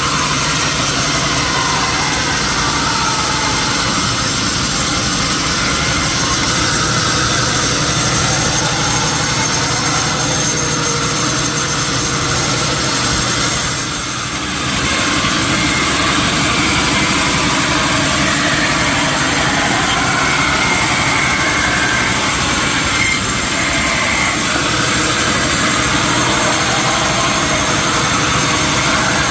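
Sawmill machinery running steadily while milling teak, with a brief dip in level about halfway through.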